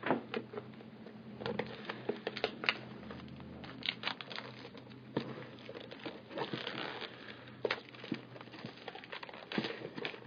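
Wrapping on a sealed box of football trading cards crinkling and tearing as it is opened, with irregular sharp crackles and rustles.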